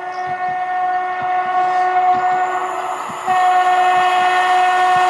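Train horn held in long, steady blasts as a train approaches, breaking off briefly about three seconds in and coming back louder. Low knocks of the wheels on the rails sound underneath.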